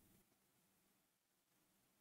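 Near silence: faint digital background hiss with nothing else audible.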